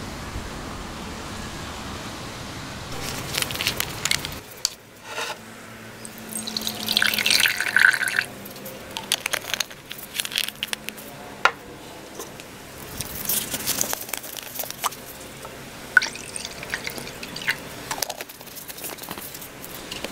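Liquid, the acetic acid and hydrogen peroxide for making peracetic acid, poured into a glass Pyrex measuring jug in two goes, the first about seven seconds in and the second past the middle, with scattered clicks and taps of glassware. A steady hiss fills the first few seconds.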